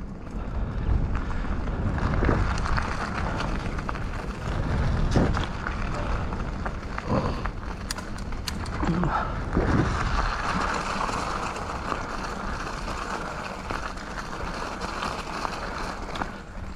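Mountain bike riding along a trail: tyres rolling over rough ground, with scattered knocks and rattles from the bike over bumps and a low rumble throughout.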